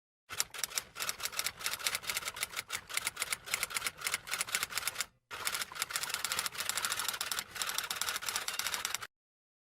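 Typewriter being typed on: rapid, irregular key strikes in two runs with a short break about halfway through.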